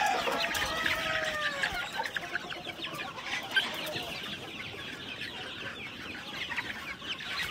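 A flock of young Fayoumi chickens calling all together: many short overlapping cheeps and clucks, with a few longer falling calls near the start.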